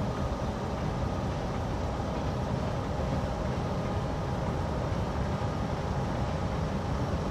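Diesel locomotive OHCR 2162 running steadily with a low rumble as it works a stone train through unloading.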